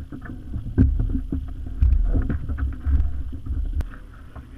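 Wind rumbling on the microphone with scattered knocks and thumps from the hull of an aluminium jon boat as people move about in it.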